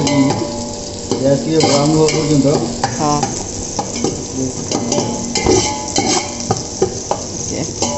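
Sliced onions sizzling in hot oil in a large metal pot, stirred with a long steel ladle that scrapes and knocks against the pot again and again.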